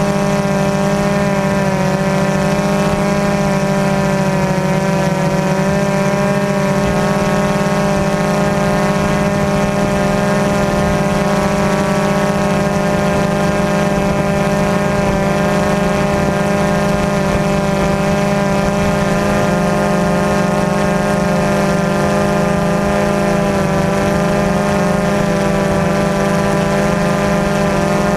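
Multirotor drone's electric motors and propellers hovering, heard from the drone's own camera: a loud, steady hum made of many tones together, their pitch wavering slightly as the motors hold position.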